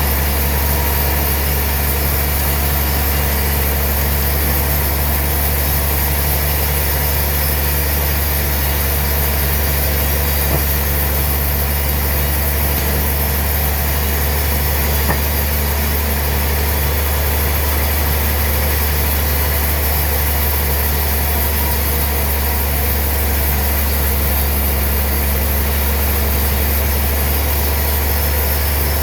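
Sawmill machinery running with a steady low drone, even throughout.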